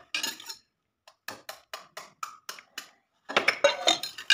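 Kitchen utensils tapping and clinking: a series of light taps, a few a second, then a louder run of clatter near the end.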